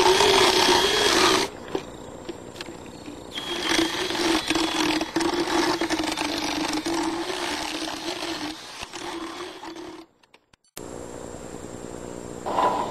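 Motorized equine dental float running and grinding a horse's teeth, a steady motor whine with rasping. It stops about a second and a half in, starts again two seconds later, and breaks off briefly near the end.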